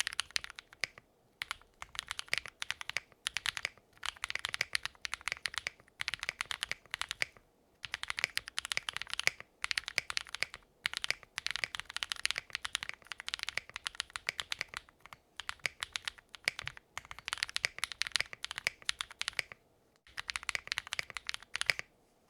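Typing on a QwertyKeys Neo65 mechanical keyboard with factory-lubed Punkshoo x Aflion Runner switches, a POM plate and GMK keycaps: keys struck in quick runs with brief pauses between them.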